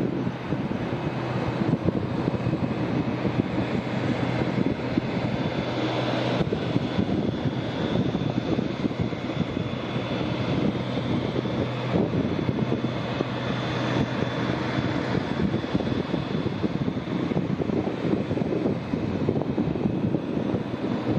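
Boeing 787-8 Dreamliner's twin jet engines running at taxi power: a steady rumble with a faint, even high whine as the airliner taxis.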